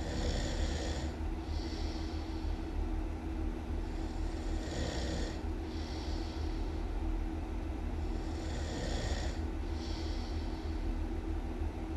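A person snoring really loud: one snoring breath about every four seconds, each with a hissing, airy rush, over a steady low hum.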